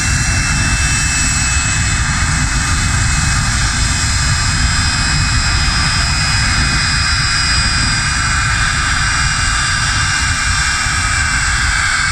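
Jet car's jet engine running: a loud, steady rush with thin high whines that slowly drop in pitch.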